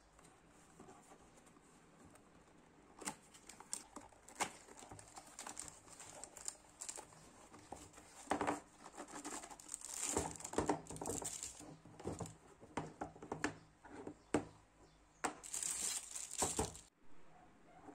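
Unboxing handling noise: the cardboard box and tray sliding and scraping, with scattered knocks of hard plastic parts, then the plastic wrapping on the stand's base crinkling near the end before stopping abruptly.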